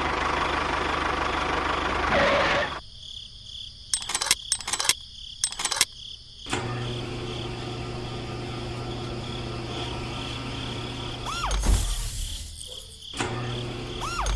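Small electric motor of a homemade miniature tractor running with a steady low hum, with sharp clicks before it starts. A steady high insect-like tone sounds in the background, and the sound changes abruptly several times.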